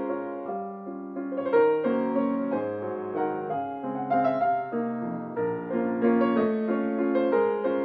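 Solo acoustic grand piano playing a waltz, a melody over a steady flow of struck chords.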